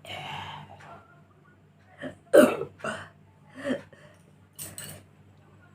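A woman burping after gulping cola: a run of about five short burps a fraction of a second to a second apart, the loudest about two and a half seconds in.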